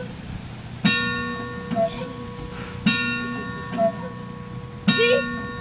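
The world's largest cuckoo clock striking: a ringing metallic chime struck three times, about every two seconds, each stroke left to ring out.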